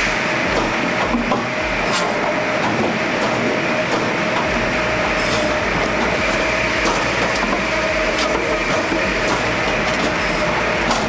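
Wood-processing machine running: a steady mechanical clatter with a constant whine, scattered clicks and regular low thuds.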